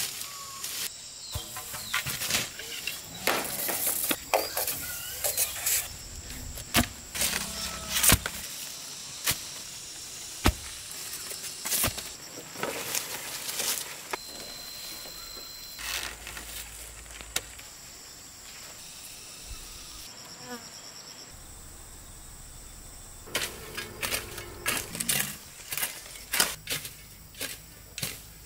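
Insects droning with a thin, steady high tone throughout, under irregular sharp knocks and rustles and a few short bird chirps.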